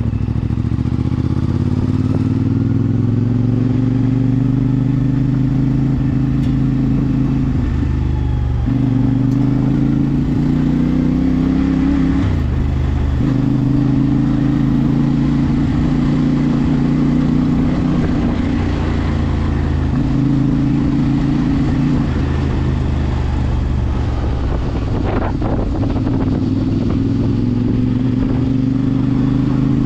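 CFMOTO 450MT motorcycle engine through its stock exhaust, pulling through the gears: the pitch climbs steadily in each gear and drops at several gear changes.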